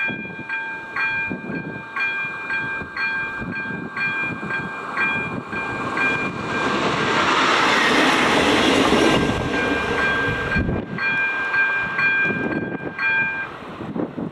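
Electronic warning bell of an AŽD 97 level-crossing signal (ZV02) ringing about twice a second, while a ČD class 814 RegioNova diesel railcar passes over the crossing. Its engine and wheels drown the bell for a few seconds in the middle, and the bell stops shortly before the end.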